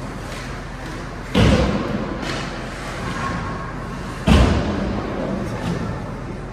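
Two heavy thuds against the boards of an ice hockey rink, about three seconds apart, each ringing briefly through the arena.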